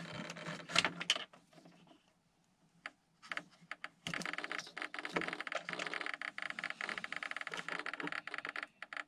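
Handling noise as an RC plane's flight battery is disconnected: a few clicks in the first second, then after a pause a dense run of small clicks and rattles for about five seconds.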